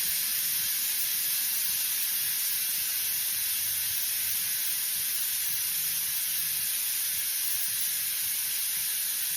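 Air-powered vacuum brake bleeder hissing steadily with its trigger held, compressed air rushing through it to draw brake fluid and air out through the opened bleed nipple of the caliper.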